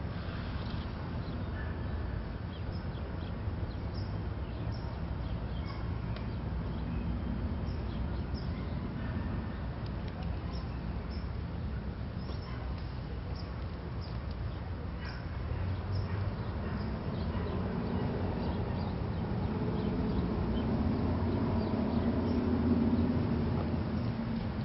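Outdoor residential street ambience: a steady low rumble of distant traffic with faint bird chirps scattered through. A low rumble swells over several seconds in the second half and fades near the end.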